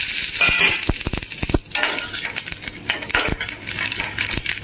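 Cumin seeds sizzling in hot ghee in a stainless-steel kadhai, with a metal spatula clinking and scraping against the pan as the seeds are stirred.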